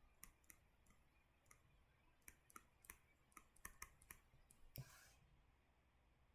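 Near silence with faint, irregular small clicks, about a dozen of them, scattered through the first five seconds; one slightly louder click about five seconds in.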